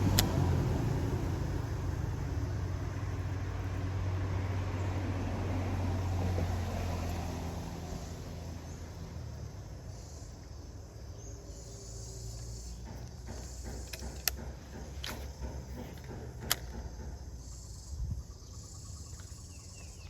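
A motor vehicle running past on the road, its low engine hum fading away over the first eight seconds. After that, insects buzz in high patches and there are a few sharp clicks.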